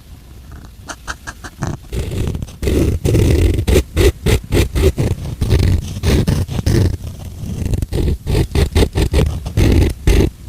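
A person making loud, rough growling and roaring noises with their voice, starting about two seconds in after a few faint clicks.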